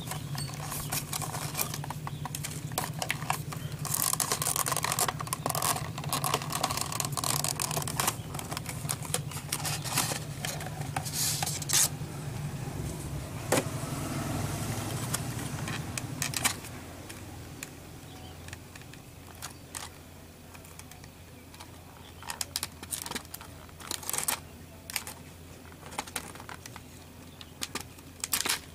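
Hard clear plastic clamshell packaging being handled and opened, with irregular crackles, clicks and scrapes of the plastic. A low steady hum runs underneath and stops a little over halfway through.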